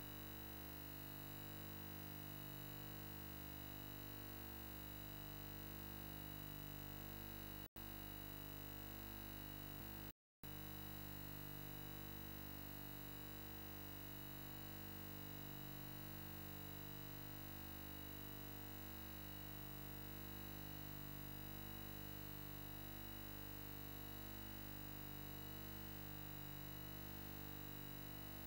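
Steady electronic hum made of many held tones, with a slow regular throb about every two to three seconds; it cuts out briefly twice, at about eight and ten seconds in.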